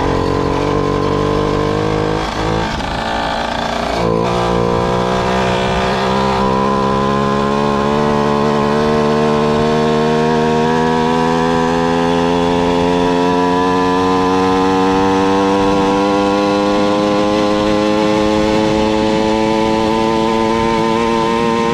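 Two-stroke motorized bicycle engine running at wide open throttle, its pitch climbing slowly and steadily. The note dips briefly about two to four seconds in, then picks up again.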